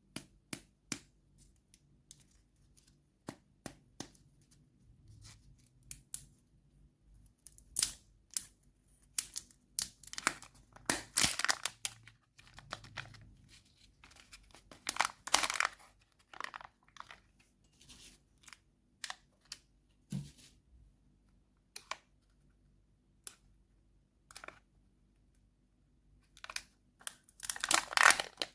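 Plastic and foil candy wrappers being crinkled and torn open: scattered sharp crackles and rustles, with longer, louder tearing stretches around the middle and near the end.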